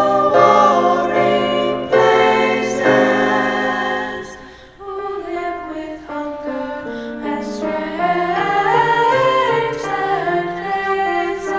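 A choir singing slow, sustained chords; the music drops quieter about four seconds in, then a melody line carries on.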